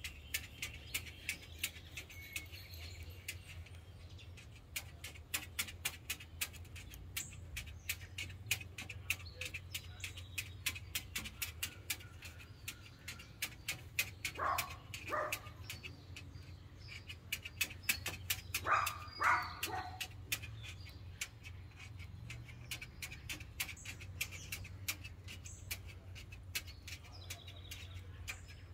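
An umbrella cockatoo's claws clicking and tapping on a glass tabletop as it walks, in quick irregular taps. Twice around the middle comes a short run of two or three bark-like calls, over a steady low hum.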